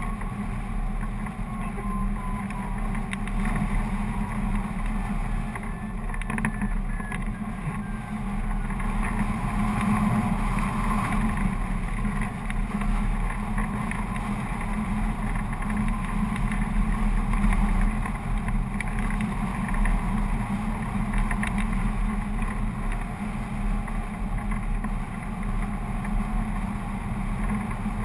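Steady rush of airflow buffeting the microphone of a camera mounted on a hang glider in flight, mostly a low rumble.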